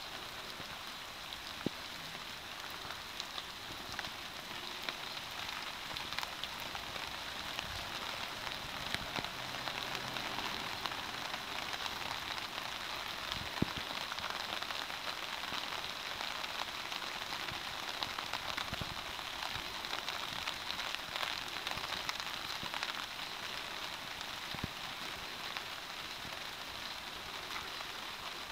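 Steady rain falling on a British Army MTP basha tarp and the wet ground: an even hiss dotted with many small drop ticks, and a few louder single drops.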